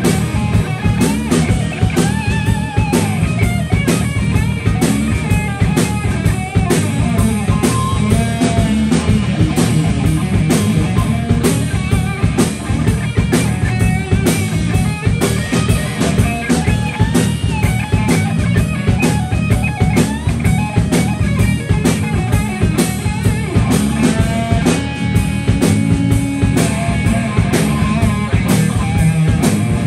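Live rock band playing a blues-rock number: electric guitar, bass guitar and a drum kit keeping a steady beat.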